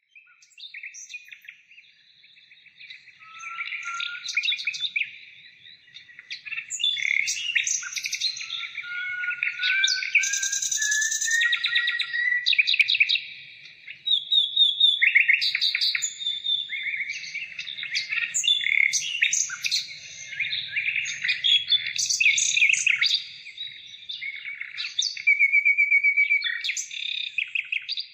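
Several songbirds singing and chirping over one another in quick trills and short calls, with a slowly rising run of notes from about three seconds in.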